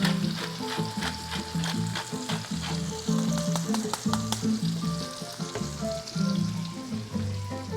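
Fish frying in a cast iron skillet, sizzling with steady crackle, while music with a steady beat plays alongside.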